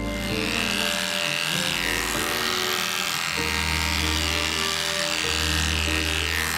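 Cordless electric dog clipper buzzing steadily as it shaves through a dense, matted, corded coat.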